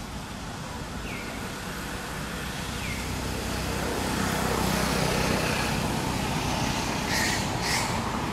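A motor vehicle's engine and road noise grows louder over a few seconds as it draws near. Two short high chirps come about a second in and again near three seconds, and two brief hissing bursts come near the end.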